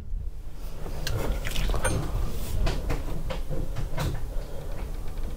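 Light knocks and scrapes of a glued wooden packer being handled and pressed into place against a boat's wooden hull frame, over a low steady hum.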